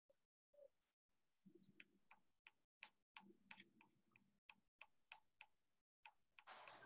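Near silence, with faint irregular clicks and soft brushing from a paintbrush working water-based acrylic paint onto a wooden picture frame.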